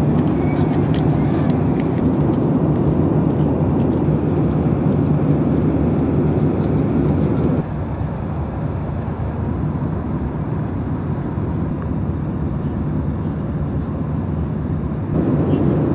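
Steady low rumble of a vehicle in motion. It drops abruptly in level about halfway through and comes back up near the end.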